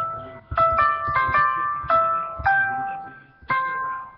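A simple melody played one note at a time on an online virtual piano keyboard, about seven notes that are each struck and then fade, at an uneven pace, with a short pause about three seconds in.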